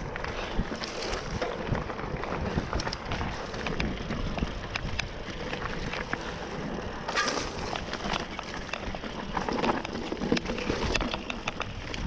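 Mountain bike ridden over a rough, rocky dirt trail: steady tyre and trail noise with frequent sharp rattles and knocks from the bike, and wind buffeting the microphone.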